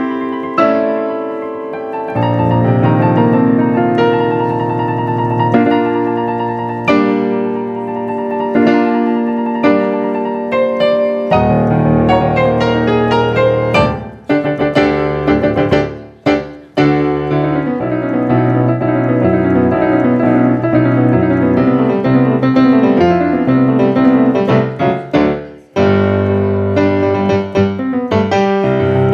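Piano playing full chords over a busy bass line, with a few brief sudden breaks in the sound in the middle and near the end.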